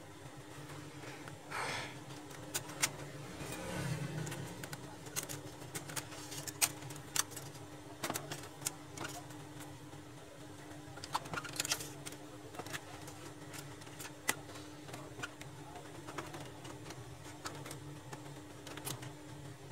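Scattered clicks and light knocks of plastic and metal laser-printer parts and screws being handled during reassembly, over a steady low hum.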